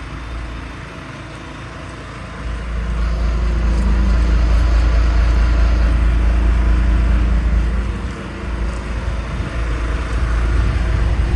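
Motor vehicle engine running with a heavy low rumble. It grows louder about two and a half seconds in, dips briefly near eight seconds, then picks up again.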